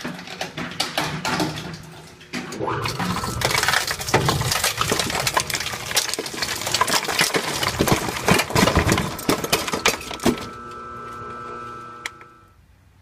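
Daejin Kostal KS-13120HDR hard-drive shredder tearing a desktop hard disk drive apart between its rotating cutters: dense cracking and crunching of the metal casing and platters for about ten seconds. Then the shredder runs empty with a steady hum that fades out near the end.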